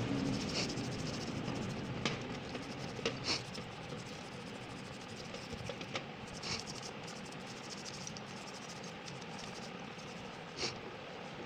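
Light scraping with scattered small clicks and knocks, the sharpest about two, three, six and ten and a half seconds in.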